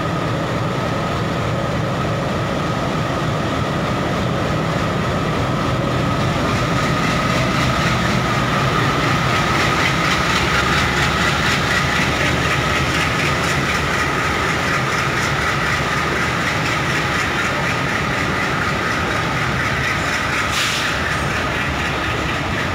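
Diesel locomotive hauling a parcel train out of the station, then the parcel vans rolling past close by with a steady rumble of wheels, clickety-clack over the rail joints, and a steady whine. A short hiss about twenty seconds in.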